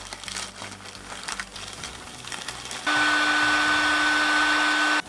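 Plastic bag crinkling as a new trimmer carburetor is unwrapped, then an electric heat gun switches on about three seconds in. It runs steadily with a fan whine for about two seconds and cuts off sharply.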